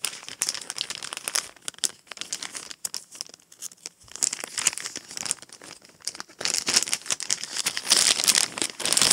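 Clear plastic bag crinkling and crackling as it is handled and opened by hand, growing louder and busier over the last couple of seconds.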